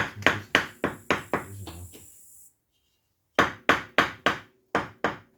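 A brick being tapped down into its clay mortar bed to level it, because it sits too high: two runs of quick sharp knocks, about three to four a second, with a pause of over a second between them.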